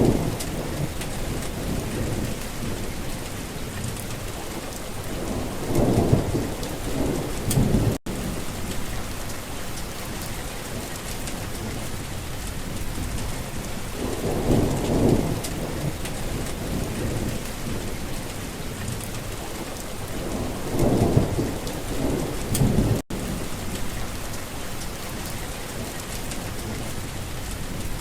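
Heavy rain falling steadily, with rolls of thunder rumbling up and fading away about four times. The sound cuts out for an instant twice.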